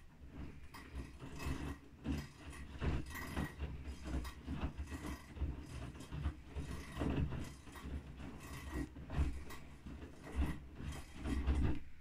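Bosch front-loading washing machine in the wash cycle: the drum turns and wet, sudsy laundry tumbles and sloshes with irregular thuds and swishes over a low rumble, then the drum stops near the end.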